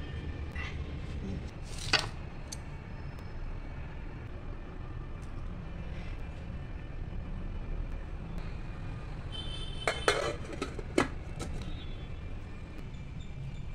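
Stainless-steel pot and utensils clinking as idlis are moved from an idli steamer into a steel pot, with a sharp clink about two seconds in and a cluster of clinks about ten seconds in as the steel lid is set on the pot. A steady low hum sits underneath.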